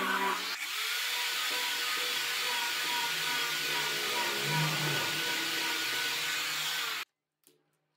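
Angle grinder with a sanding disc running against a wooden disc, a steady motor whine over a sanding hiss. It stops abruptly near the end, followed by a few faint light knocks.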